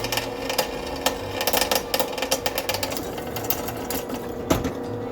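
Electric drill running steadily with a constant whine while its bit cuts through the metal of a soldering iron, with irregular clicks and chatter from the bit; it stops at the end.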